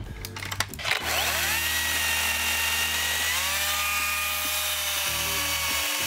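Makita DUC254 18 V brushless cordless chainsaw: a few clicks, then about a second in the motor spins up with a rising whine and runs steadily as the chain cuts into a green elder branch.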